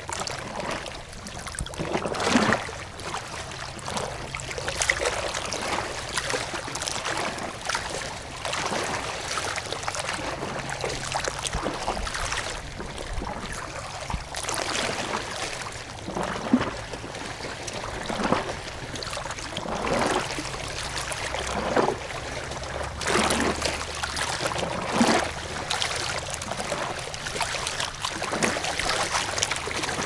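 Water splashing and gurgling, with louder sloshes coming unevenly every few seconds.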